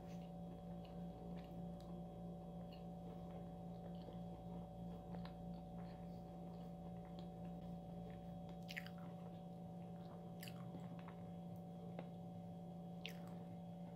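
Faint closed-mouth chewing of a macaron, with a few soft wet mouth clicks, over a steady low hum.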